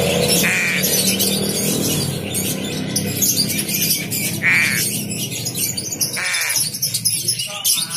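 Young crow, about five months old, giving three short calls a couple of seconds apart, over a steady high hiss.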